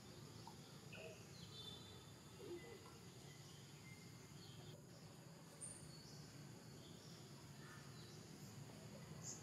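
Near silence: faint forest ambience, with a few brief high bird or insect chirps scattered over a low steady hum.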